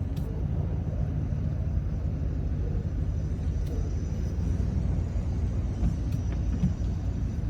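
Steady low rumble of a four-wheel-drive truck running, heard from inside the cab.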